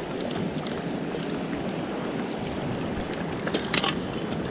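Mountain stream flowing over rocks in a steady rush. A short cluster of sharp clicks or splashes comes about three and a half seconds in.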